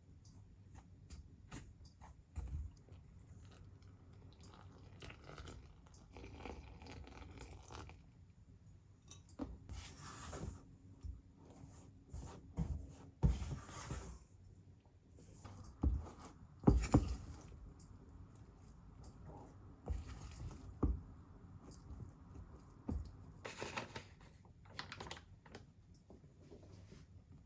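Small household handling sounds in a quiet room: scattered clicks, taps and short rustles, with a faint steady hum partway through.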